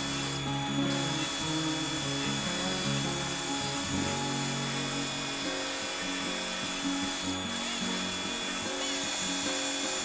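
Power sander running against fibreglass, a steady abrasive rubbing with a constant high whine, under background music.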